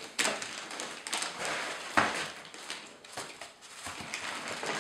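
Packaging being handled: the plastic bag around an audio interface rustling and foam packing inserts rubbing in a cardboard box. Two sharp knocks, one just after the start and a louder one about two seconds in.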